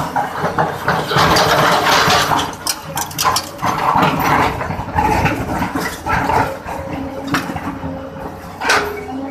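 SANY hydraulic excavator digging: the engine runs steadily under load while the bucket scrapes and breaks into rock and earth, with repeated crunching and clattering of rock and soil.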